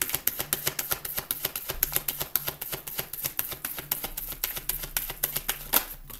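Tarot cards shuffled by hand: a quick, even run of card clicks, about five or six a second, that stops shortly before the end.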